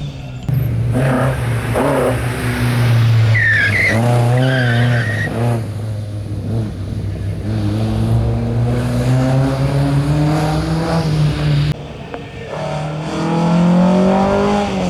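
Historic rally car engine revving hard and changing gear as it drives the stage, with a tyre squeal about four seconds in. The sound breaks off suddenly about two-thirds through, and a car then accelerates hard again, its engine pitch rising.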